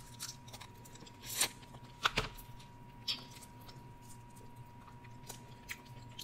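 Close-miked eating sounds from a seafood boil eaten by hand: quiet mouth and shell noises with a few short sharp clicks, the loudest about two seconds in.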